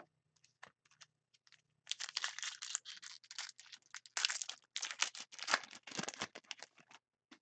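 Hockey card pack wrapper being torn open and crinkled by hand: a few light crackles, then about five seconds of dense crinkling and tearing.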